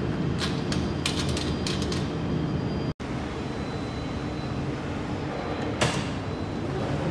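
Steady machine hum of a mold laser welding machine, with a quick run of sharp clicks in the first two seconds and a single sharp click near six seconds. The sound cuts out for an instant about three seconds in.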